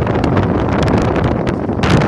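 Storm-force wind buffeting the microphone: a loud, constant rumble with crackling gusts, and a stronger gust hitting near the end.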